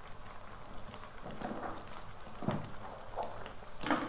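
Thick tomato and onion masala paste simmering in a wok, with a faint steady crackle and scattered pops, plus a few louder plops as bubbles burst through the paste.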